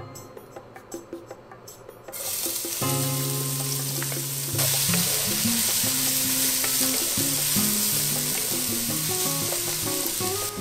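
Diced onion sizzling in hot oil in a pot, stirred with a wooden spoon. The sizzle starts about two seconds in as the onion hits the oil, and grows louder about two and a half seconds later.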